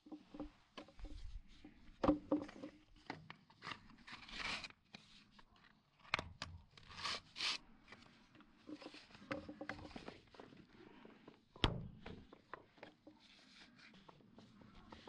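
Blue polyethylene water pipe and plastic compression fittings being handled and pushed together: irregular clicks, taps and scraping of plastic on plastic. A sharp knock comes about two seconds in and another near twelve seconds.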